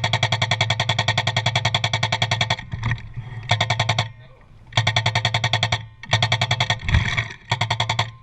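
Airsoft electric gun firing full-auto in rapid bursts. The first burst is long, about two and a half seconds, and four or five shorter bursts follow with brief pauses between them. The gearbox hum runs under the fast clicking of the shots.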